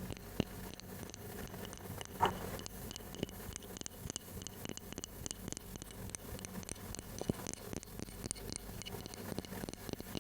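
Close-miked ASMR tapping: rapid, light taps and clicks, with one louder knock about two seconds in.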